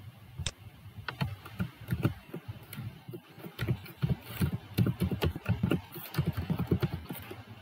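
Typing on a computer keyboard: a quick, uneven run of key taps, with a brief pause about three seconds in.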